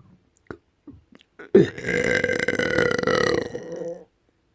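One long, loud burp lasting about two and a half seconds, starting about a second and a half in and holding a steady pitch. It is preceded by a few faint clicks.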